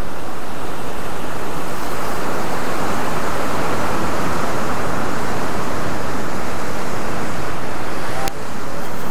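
Ocean surf surging and breaking against the foot of a rock cliff: a loud, steady wash of waves, with a short click about eight seconds in.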